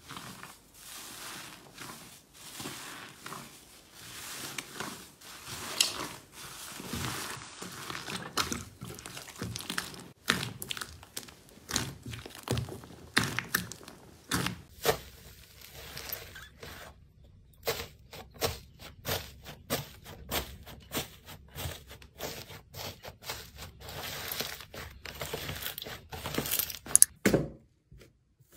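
Hands squeezing, poking and stretching slime: a busy run of sticky pops, squelches and crackles, several a second. First a thick white slime, then a glossy pink slime squished in a bowl, and near the end the dried crust on an orange slime cracking under the fingers.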